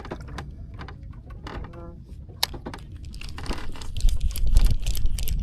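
Irregular small clicks and rattles, with one sharper click about halfway through, then a low rumble that grows loud from about four seconds in.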